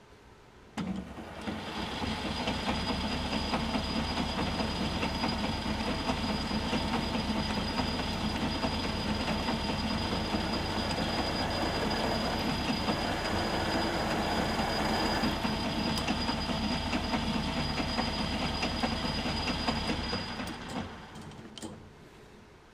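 Metal lathe spindle running while a center drill in the tailstock chuck cuts into the end of the spinning workpiece. It starts about a second in and runs steadily with a thin high whine over it, then winds down near the end.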